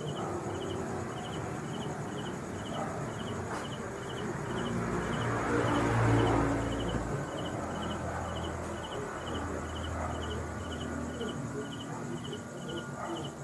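Cricket chirping steadily, about three chirps a second, over a low background rumble that swells and fades around the middle.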